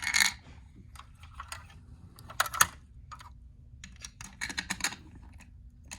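Plastic toy cars and figures being handled: scattered sharp clicks and clacks in a few small clusters, the loudest about two and a half seconds in.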